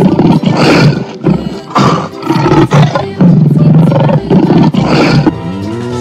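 Lion roaring: a run of loud, rough roars and growls one after another.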